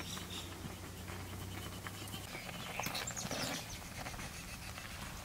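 Metal ladle clinking and scraping against an aluminium cooking pot as chopped leaves are stirred, in scattered irregular knocks.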